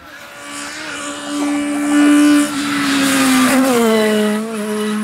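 Rally car engine running at high revs as the car approaches at speed, getting louder, then passing close by; the engine note falls about three and a half seconds in and carries on at a lower pitch.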